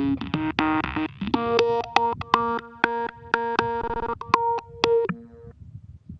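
Background electronic music: a synthesizer playing a melody of short plucked keyboard-like notes. The music stops about five and a half seconds in, leaving only a faint low rumble.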